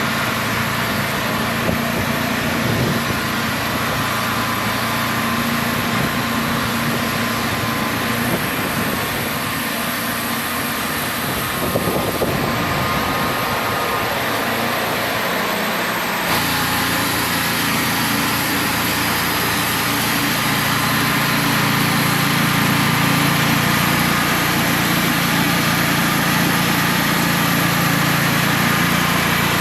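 Wood-Mizer portable band sawmill's engine running steadily; its pitch pattern shifts about sixteen seconds in.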